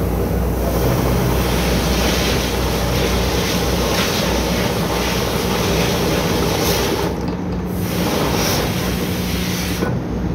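Oil drilling rig machinery running loudly: a steady low engine hum under a broad rushing noise. The rushing thins out briefly about seven seconds in.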